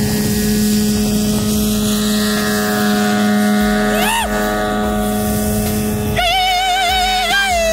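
Bass boat's outboard motor running at speed, a steady drone over the rush of wind and water. A short rising-and-falling tone comes about four seconds in, and background music with a wavering melody starts about six seconds in.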